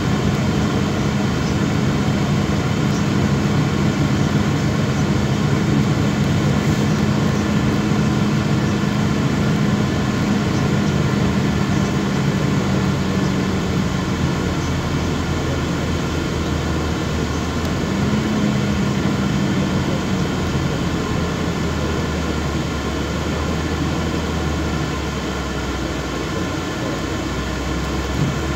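Inside a MAZ 206 city bus on the move: the diesel engine runs with a steady hum over road noise. The engine note falls away around the middle, picks up briefly, then settles into a lower rumble near the end.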